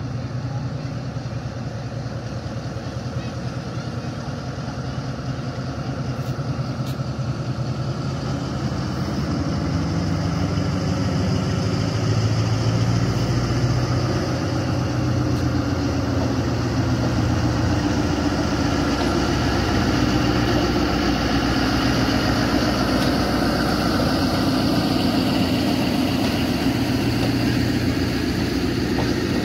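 Diesel-electric locomotive engine of a ZCU-20 (GE U20C) running under power as the train pulls out of the station. The engine note is steady and grows louder about a third of the way in as the locomotive draws near.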